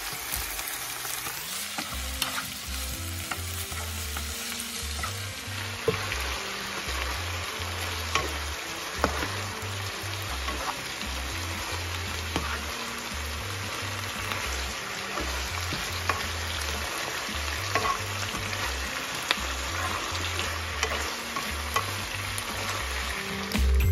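Tofu and baby bok choy sizzling in a nonstick frying pan as a spatula stirs them in the sauce, with occasional sharp taps of the spatula against the pan.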